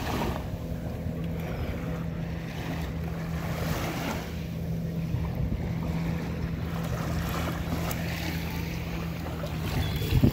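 Wind rushing over the microphone and small waves lapping at the water's edge of a calm sea, rising and easing every second or two. A steady low hum, like a distant engine, runs underneath and stops near the end.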